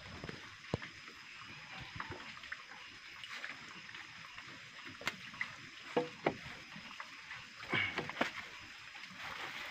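Scuffs, rustles and a few short knocks from handling a python coiled around a man's leg as it is pulled loose, over a steady hiss.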